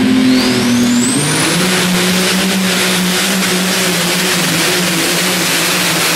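Modified pulling tractor's engine running loud and steady at full load as it drags the weight sled down the track. A high whine climbs over the first two seconds and then holds.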